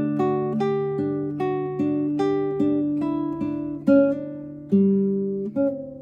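Guitar played note by note: a melody of single plucked notes at an even pace, about two or three a second, ringing over a sustained low note. The notes fade out near the end.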